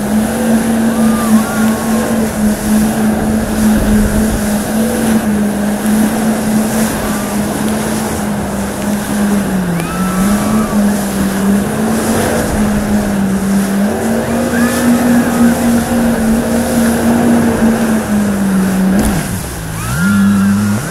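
Jet ski engine running at steady high speed while towing a banana boat, over the rush of wake and spray. Near the end the engine note dips and swings up and down as the throttle is eased and opened again.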